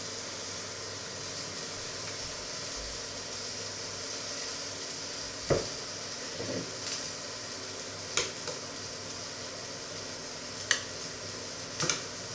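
A metal spoon knocking and scraping against a stainless steel pot and a china plate, about five sharp clinks spread over the second half, over a steady high hiss from the pots cooking on the stove.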